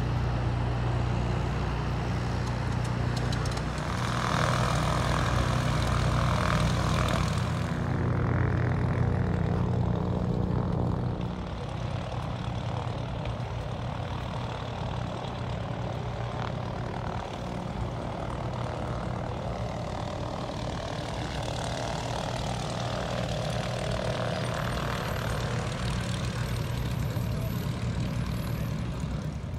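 Piston engine of a propeller aircraft running steadily. It grows louder for several seconds about four seconds in, then eases back to a lower, steady running.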